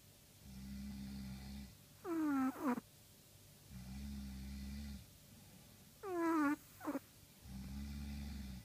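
Chihuahua snoring: a low steady snore of about a second alternates with a louder, high whistling squeak that falls in pitch. The cycle repeats about every four seconds, with three low snores and two squeaks.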